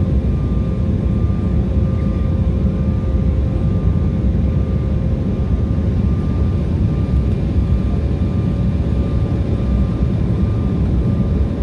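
Jet airliner cabin noise heard from a window seat in flight: a steady low rumble of engines and airflow, with two faint steady whining tones on top.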